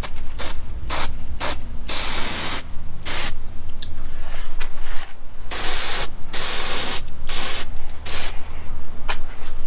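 Aerosol spray paint can spraying in a series of short hissing bursts, a few quick ones and several longer ones, from a can that is nearly empty.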